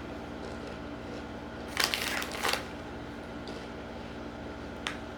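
Crunching as a Jack 'n Jill Chippy barbecue corn chip is bitten: a short burst of crunching a little under two seconds in, over a faint steady hum.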